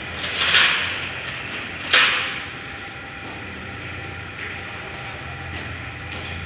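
Yamaha MX King's single-cylinder four-stroke engine running with a steady low hum, the engine noise that the uploader calls a common fault on this model. Two loud short whooshes come about half a second and two seconds in.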